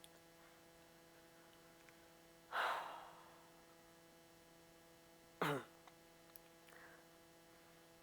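A person's loud breathy exhale about two and a half seconds in, trailing off, then a short voiced sound falling in pitch about five seconds in, over a steady faint electrical hum.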